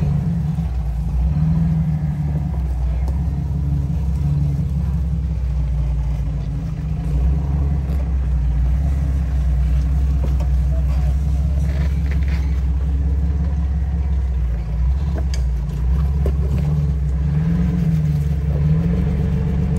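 Off-road vehicle's engine running at low speed on a trail, a steady low rumble whose pitch wavers up and down briefly near the start and again near the end.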